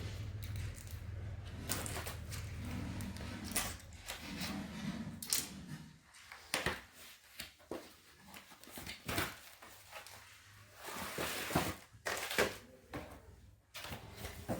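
A product box being opened and its packaging handled: a run of irregular scrapes, rustles and taps as the flap and contents slide out. A low steady hum sits under the first six seconds or so.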